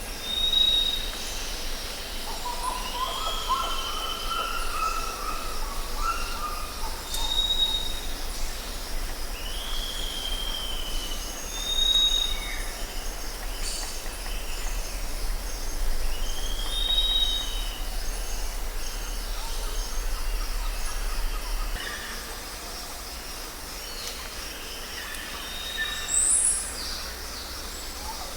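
Wild birds calling: short high chirps every few seconds and drooping whistled notes, with a lower warbled phrase a few seconds in. Beneath them runs a steady low rumble that drops away about twenty seconds in.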